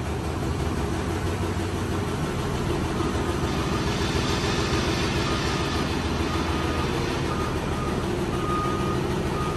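Engine of a lifting machine running steadily under load while it hoists a tank engine out of the hull. Faint short beeps repeat from about three seconds in.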